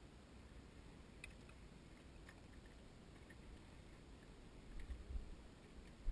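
Quiet outdoor ambience: a faint low rumble of wind and handling noise on a body-worn camera's microphone, with a few soft clicks. There is a soft thump about five seconds in and a sharp knock at the very end.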